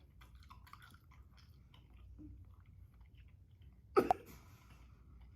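A person chewing softly, with faint wet mouth clicks, and a short sharp double sound about four seconds in, between coughing fits.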